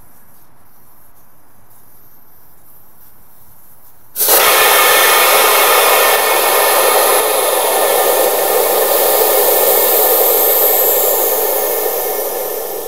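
Air hissing out of a motorcycle's rear tyre valve as the unscrewed valve core shoots out. The hiss starts suddenly and loud about four seconds in and fades near the end as the tyre deflates and goes flat.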